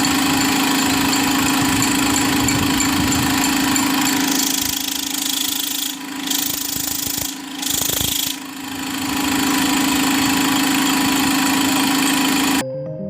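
A large machine running, engine-like, with a steady deep hum under a heavy hiss; it dips briefly a few times around the middle and cuts off abruptly near the end.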